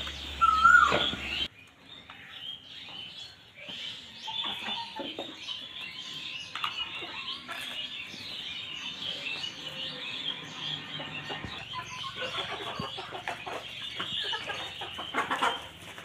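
A flock of brown hens clucking and chirping, many small overlapping calls keeping up steadily. In the first second and a half a louder high, sliding call is heard before the sound changes abruptly.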